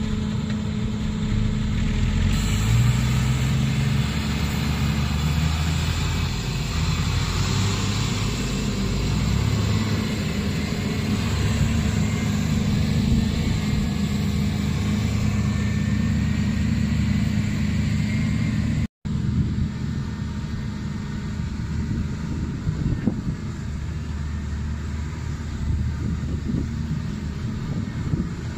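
Volvo EC210B crawler excavator's diesel engine running under load as the hydraulics swing the boom and work the bucket, its pitch rising and shifting as the machine works. The sound drops out for an instant about two-thirds of the way through.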